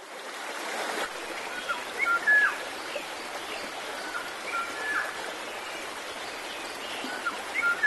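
Nature ambience: a steady hiss of running stream water with short high chirps scattered over it, the loudest about two seconds in and again near the end.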